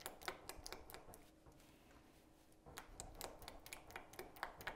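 Faint clicks and scrapes of a utensil stirring melted dark chocolate in a bowl to temper it, in two short spells.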